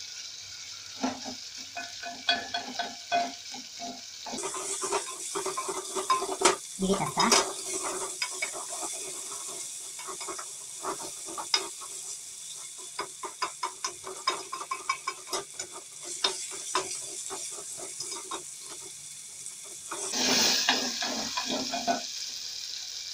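Beef pieces sizzling in hot oil with browned onions, ginger and garlic in an aluminium pot, while a wooden spoon stirs and scrapes against the pot in quick clicks. The sizzle gets louder about four seconds in and surges again near the end.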